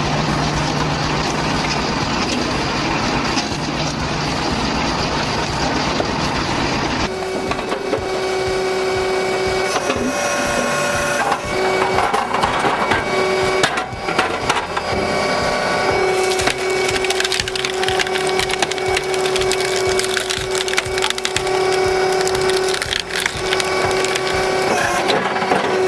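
Firewood-processing machinery running while logs are split, with loud cracking and splintering of wood. The sound changes abruptly about seven seconds in, to a steady machine tone under frequent sharp cracks and knocks.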